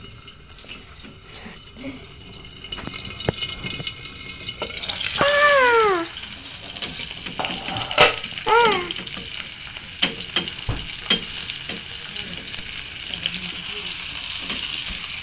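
Steak sizzling as it fries in a hot pan. The sizzle swells sharply about four and a half seconds in and then holds steady, with a sharp click and a couple of brief voice exclamations over it.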